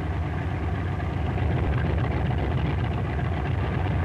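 Grumman TBF Avenger's Wright R-2600 fourteen-cylinder radial engine running steadily with the propeller turning, getting a little louder about a second and a half in.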